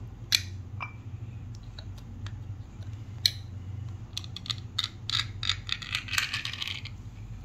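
Close handling noises: a few sharp clicks, then about four seconds in a quick run of clicks with a crackly rustle, over a low steady hum.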